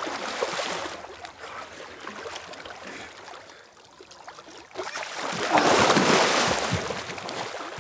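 Lake water splashing as two people wade and throw water at each other, with a quieter lull just before the middle and the biggest, loudest splash about five seconds in, trailing off after.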